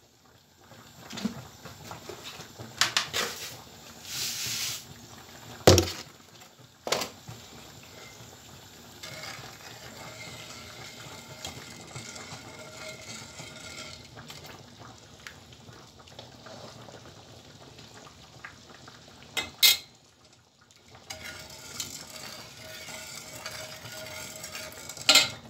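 Metal ladle clinking and knocking against metal pots now and then, over the steady hiss of syrup simmering around a bread dessert in its pan.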